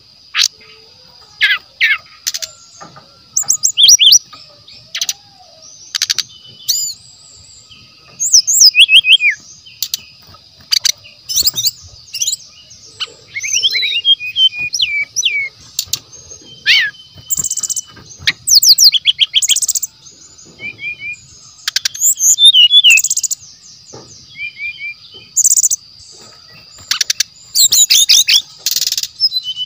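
Brown-chested jungle flycatcher singing a varied string of short, sharp, high whistled notes and rapid trills, broken by brief pauses, with a steady high buzz behind it.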